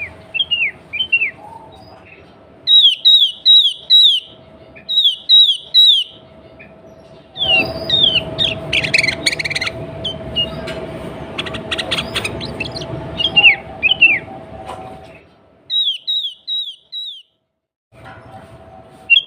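Sooty-headed bulbul calling: short whistled notes that slur downward, given in quick runs of three to five. In the middle there is a busier stretch of overlapping calls over a louder background hiss and a faint steady hum.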